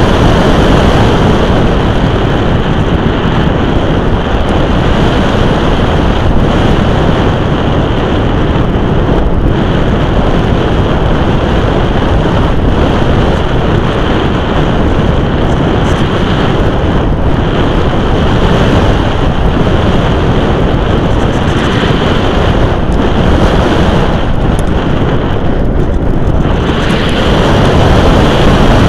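Wind rushing over the onboard camera of an RC plane in flight: a loud, steady rush of air noise. Its hiss thins briefly a little before the end.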